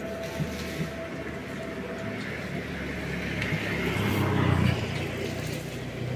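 Street traffic running steadily, with one vehicle passing closer and louder about four seconds in, then fading.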